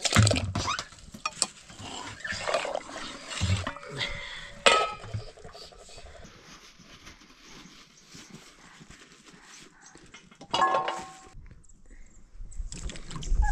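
Scattered clinks and knocks of pots and kitchen utensils, with a short animal call.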